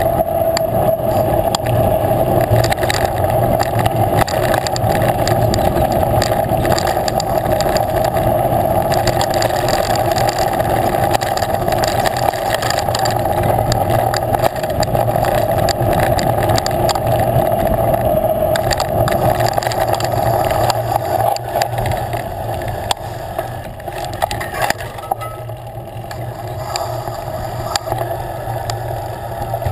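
Steady riding noise from a mountain bike on a dirt trail, heard on a camera mounted on the bike: wind rushing over the microphone, tyre rumble and small knocks from the bumpy ground. It eases off a little about two-thirds of the way through as the bike slows.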